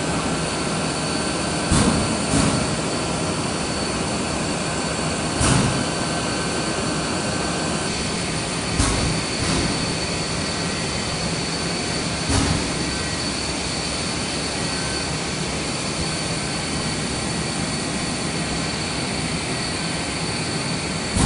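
Steady roar of a running Mitsubishi ML605GTWIV-H circuit-board laser drilling machine, with a faint high whine over it and a few sharp knocks in the first half.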